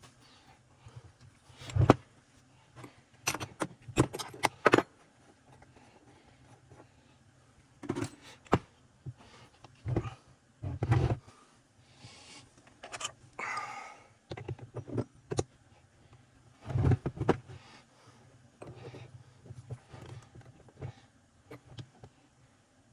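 Scattered clicks, knocks and metallic clinks of hand tools and small parts being handled while an Echo CS-3000 chainsaw is taken apart, with a brief scraping sound about halfway through.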